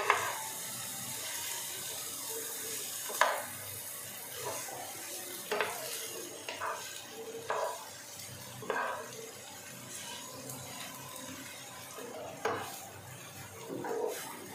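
Broccoli and masala sizzling as they are fried in a pan, with a steady hiss, while a wooden spatula stirs them, scraping and knocking against the pan every second or two.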